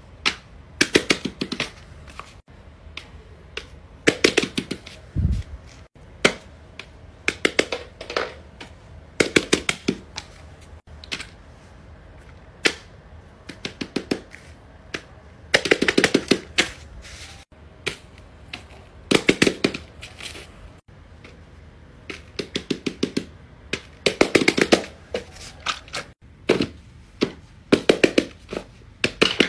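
Fidget toys being handled, with short runs of sharp popping clicks in quick succession, a burst every second or two, typical of silicone pop-it bubbles being pressed.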